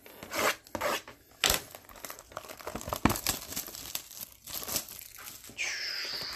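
Clear plastic shrink-wrap crinkling and tearing as it is stripped off a sealed trading-card box, with irregular crackles and rustles and a brief squeak near the end.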